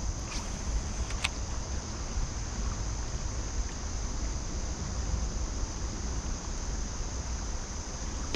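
Wind rumbling on the microphone, over a steady high drone of insects, with two sharp clicks in the first second and a half.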